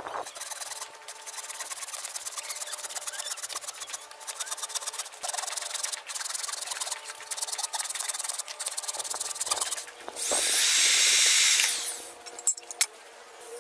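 Hand saw cutting through a wooden branch in quick back-and-forth strokes. About ten seconds in, a power tool runs loudly for about two seconds.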